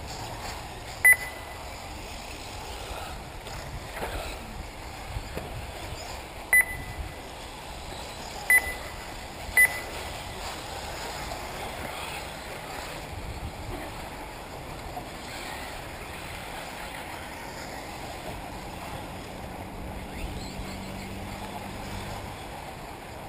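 Four short, loud, high-pitched electronic beeps, one about a second in and three more between six and ten seconds in, of the kind an RC race lap-timing system gives as cars cross the timing loop. Underneath is a steady outdoor background noise.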